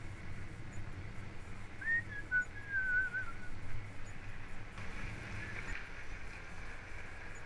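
Bicycle riding along a tarmac path: a steady low rumble of tyres and wind. About two seconds in comes a brief wavering whistle that falls in pitch over about a second and a half.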